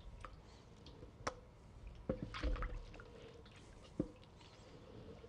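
Hands squeezing and kneading mozzarella curd in a bowl of very hot water: soft wet squishing and dripping, with a few sharp knocks about one, two and four seconds in.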